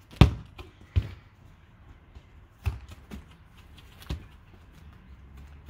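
A soccer ball kicked hard, a sharp thump about a quarter second in, followed by four softer thuds spread over the next few seconds.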